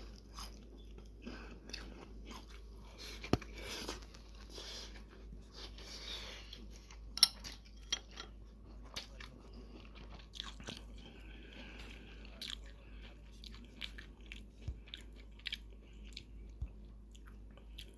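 Close-up chewing and crunching of crisp kakiage (vegetable tempura fritter) over rice, with scattered small crunches and two sharper clicks about three and seven seconds in.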